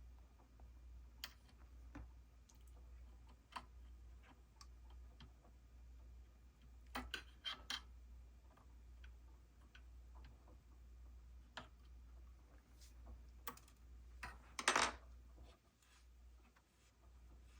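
Scattered small clicks and taps of tools and small parts being handled at a workbench, with a few louder knocks about seven seconds in and near the end, over a steady low electrical hum.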